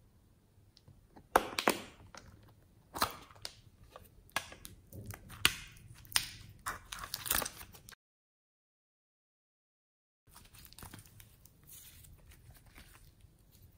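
Putty slime being mixed and squished into store-bought slime by hand, with sharp sticky clicks and pops from air pockets in the slime. The sounds cut to dead silence for about two seconds past the middle, then fainter, denser crackling resumes.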